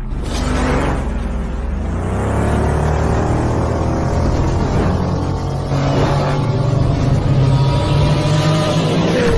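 Sci-fi light cycle engine sound effects: a deep steady drone with gliding whines and several whooshes of passing vehicles.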